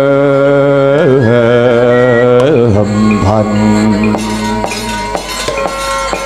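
Wayang kulit dalang singing a Javanese suluk in long, wavering held notes over soft gamelan accompaniment. The voice tapers off in the second half, leaving struck gamelan notes and a thin held tone.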